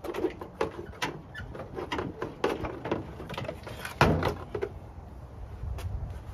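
A Jeep Wrangler's plastic fender flare being pulled off the body: a quick run of clicks and creaks as it is worked loose, with a loud knock about four seconds in as it comes free.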